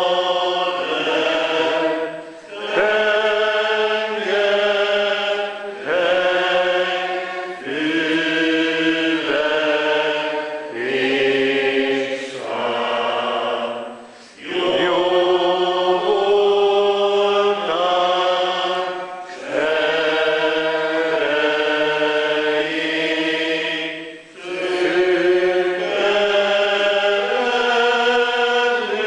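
Church congregation singing a slow hymn, with long held notes in phrases of a few seconds and a short breath-pause between lines.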